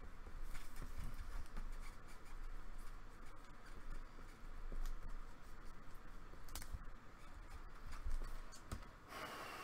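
Trading cards and plastic card holders being handled: light, scattered clicks, taps and scrapes, with a longer rustle near the end.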